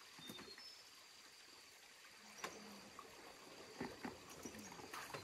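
Near-quiet background hiss with a few scattered light clicks and soft knocks, and some brief faint high-pitched tones.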